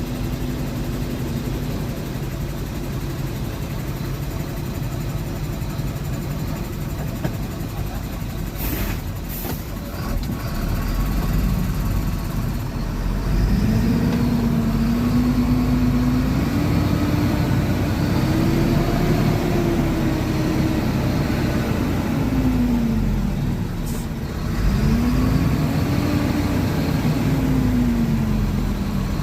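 Heavy diesel engines of a dump truck and a Komatsu PC200 excavator running steadily. About halfway through, the engine speed rises and falls in two long swells as the machines work under load to shove the truck up a slippery slope.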